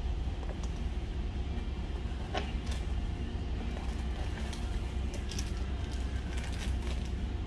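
Ambience of a nearly empty fast-food restaurant: a steady low hum with a few light clicks and knocks, one a little over two seconds in and several more later on.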